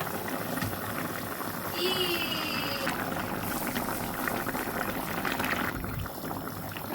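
Food bubbling in a cooking pot on the stove: a steady crackling hiss.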